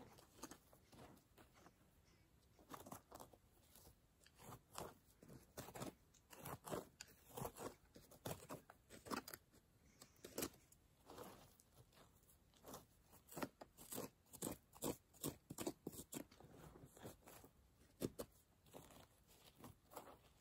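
Small hand digging tool scraping and crunching through loose dirt, in faint, short, irregular strokes, often one or two a second.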